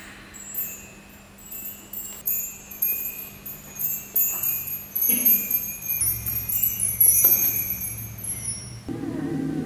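Small metallic chimes struck and shaken in a loose, free improvisation: many short, high, shimmering rings overlapping and dying away. Near the end a held, wavering note comes in.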